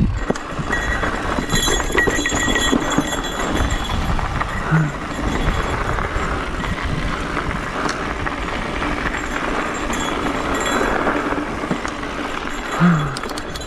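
Mountain bike rolling fast over a dirt singletrack: a steady rumble of tyres on dirt, with the bike rattling and knocking over bumps. A few short low sounds stand out, the loudest near the end.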